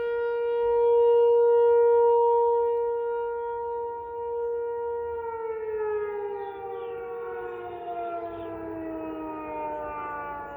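ASC-T 108 outdoor warning siren sounding a steady tone. About halfway through it winds down, its pitch sliding steadily lower as the siren is shut off.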